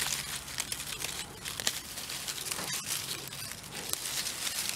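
Dry leaf litter and pine needles rustling and crackling with irregular small snaps as a hand digs into the soil and pulls at a ginger plant.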